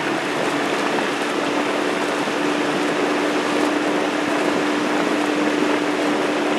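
A steady engine hum from a boat's motor running alongside, under an even rush of water and wind noise.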